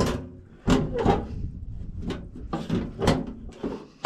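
Sheet-metal clunks and knocks from an electric range being taken apart, a part being pulled out and handled, about half a dozen separate knocks.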